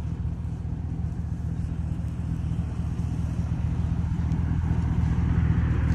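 Pickup truck's 4.8-litre V8 idling steadily.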